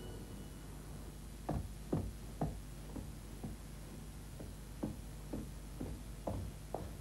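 Footsteps walking at an even pace, about two steps a second, starting about a second and a half in, over a low steady hum.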